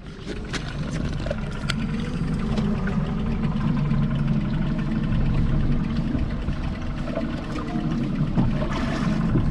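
Boat engine running steadily underway: a low, even drone with a few sharp knocks. It fades in at the start.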